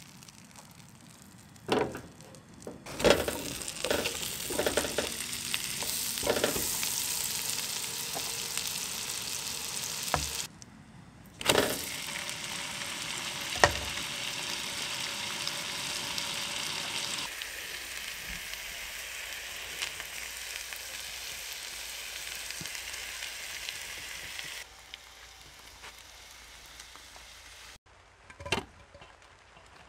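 Butter sizzling in a hot nonstick frying pan, then a raw steak laid into the foaming butter and frying with a steady sizzle. A few knocks of the pan and utensils come near the start and again near the end.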